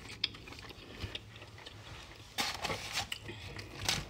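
Soft chewing of green beans, then about two and a half seconds in, a short stretch of rustling and crackling as fried chicken is handled in a paper-lined foam takeout box.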